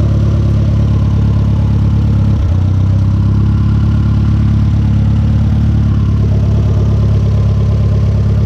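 Chrysler Conquest's turbocharged 2.6-litre G54B four-cylinder engine idling steadily, its note shifting slightly lower about two and a half seconds in.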